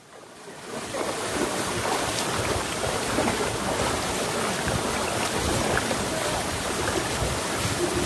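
Waterfall: a steady, even rush of falling water that fades in about a second in.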